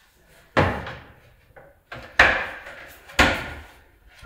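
Wooden laminate overhead kitchen cabinet doors being pushed shut one after another, each closing with a sharp knock, about four times roughly a second apart.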